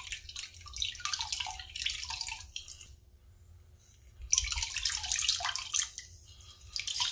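Lemon juice dripping and trickling from a hand-held citrus press into a pot of liquid, in irregular patters. The drips stop for about a second around the middle, then start again.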